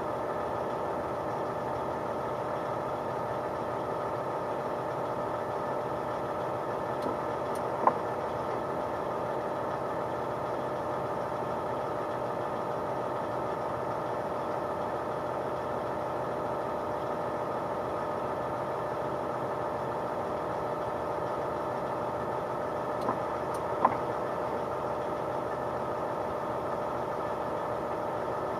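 Mack CXU-613 heavy truck's diesel engine running steadily, heard from inside the cab, with a sharp click about 8 seconds in and another near 24 seconds, each just after a fainter one.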